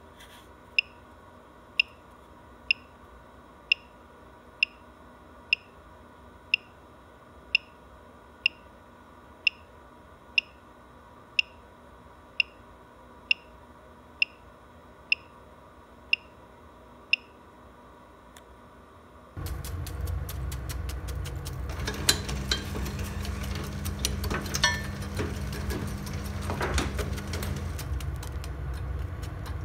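Boiler controller giving short electronic beeps about once a second as its settings menu is stepped through, over a faint steady hum. About two-thirds in, this gives way to the retort burner of a coal-fired boiler running: a steady low rumble from the blower and burning fuel, with crackles and a steady hum that lasts several seconds.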